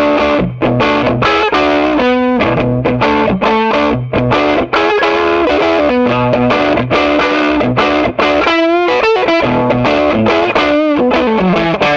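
1973 Fender Jazzmaster electric guitar played through a Swart AST Pro amp with a distorted tone: a continuous run of chords and single notes. Near the end, a few notes waver in a wide vibrato.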